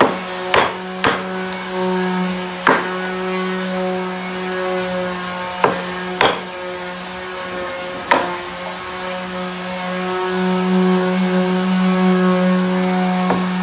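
Hammer striking a wood chisel to cut notches in a hardwood board: about seven sharp knocks at uneven intervals, mostly in the first eight seconds, over a steady low hum.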